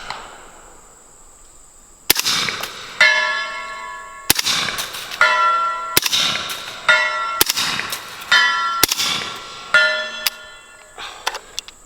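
Five suppressed shots from a 300 Blackout rifle with a Hybrid 46 suppressor, firing 190 grain subsonic rounds, about one and a half to two seconds apart. Each shot is followed about a second later by a steel target ringing as the bullet hits at about 170 yards.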